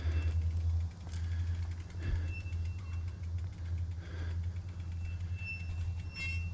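Low steady rumble of wind buffeting a chin-mounted action camera while riding a mountain bike, with faint fine ticking over it.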